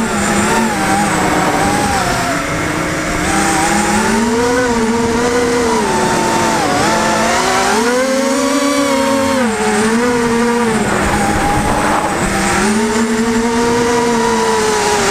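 FPV racing quadcopter's motors whining, the pitch rising and falling as the throttle changes, highest around the middle.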